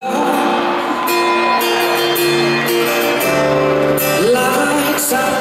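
Live band playing a slow pop-rock song, with guitar and sustained notes and a male voice singing.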